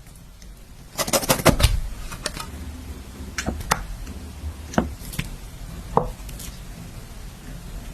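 Knife chopping on a cutting board: a quick run of strikes about a second in, then single strikes at irregular intervals.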